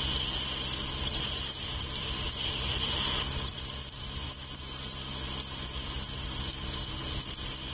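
A steady, high-pitched insect chorus, cricket-like, with a few faint short chirps over it and a low hum beneath.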